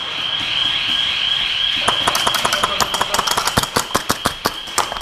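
Airsoft guns firing: a quick, uneven run of sharp snaps, several a second, starting about two seconds in. Under them runs a steady high-pitched whine.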